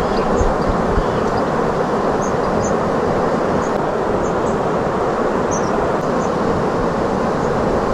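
Steady rushing of river water, with brief high chirps scattered over it.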